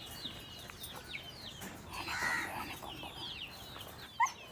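Chickens clucking and chirping: short, high, falling chirps repeat every fraction of a second, with a couple of brief rising calls near the end.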